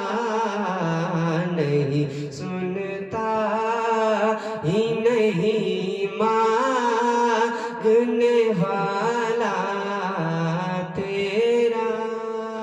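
Solo voice singing a naat, a devotional Urdu song, drawing out long, wavering held notes with no clear words.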